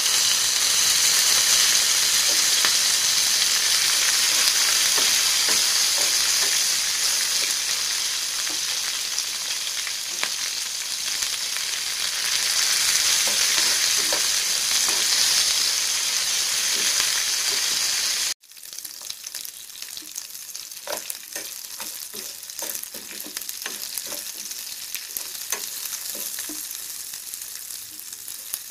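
Green chillies and curry leaves sizzling loudly in hot oil in a nonstick pan with fried dals. About two-thirds through, the sound cuts suddenly to a quieter sizzle with the spatula clicking and scraping against the pan as they are stirred.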